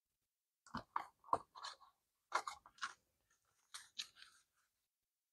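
Paper banknotes being handled and swapped, giving faint crinkling rustles in three short bursts.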